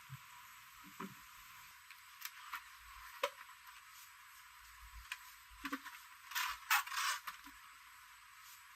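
Small parts and tools being handled during a repair: scattered light clicks and knocks, then a brief spell of scraping and rustling about two-thirds of the way through.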